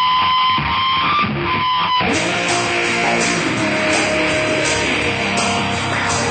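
Rock music with guitar, no singing yet. About two seconds in it changes abruptly to a fuller, denser section.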